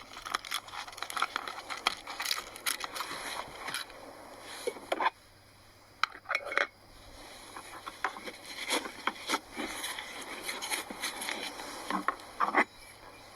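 Metal camp cookware and utensils clinking and scraping in a run of small, irregular knocks while coffee is being made, with a short pause about five seconds in.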